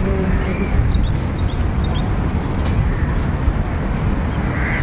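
Steady low outdoor rumble, with a few faint bird chirps above it.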